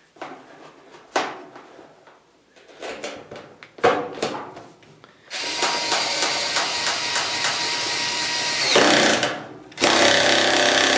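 Power drill running for about three and a half seconds and winding down as it stops, then running again briefly near the end, driving in the screw that holds the dryer cord's green ground wire. A few short knocks and clicks of handling come before it.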